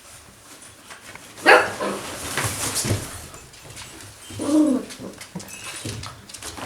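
Golden retriever puppies barking: one sharp bark about a second and a half in, and a shorter pitched yip that rises and falls about halfway through.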